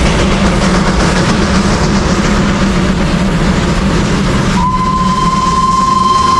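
Darjeeling toy train with its steam locomotive running, a steady rumble; about four and a half seconds in, a single long, steady train whistle starts and holds.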